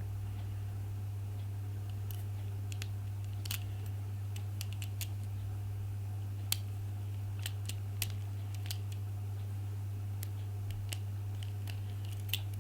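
Small irregular clicks from handling a Master Lock TSA luggage combination lock and turning its number dials, the sharpest about six and a half seconds in, over a steady low hum.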